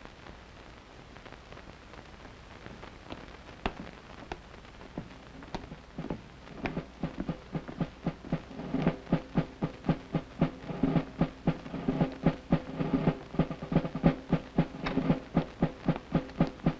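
A steady marching beat of drum-like strokes, about three a second, each with a short low ring. It is faint and sparse at first and grows louder and more regular from about six seconds in.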